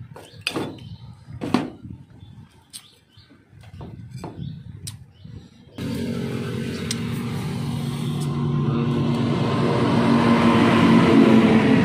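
Scattered clicks and short chirps, then about six seconds in a motor sets in abruptly and runs at a steady pitch, growing louder.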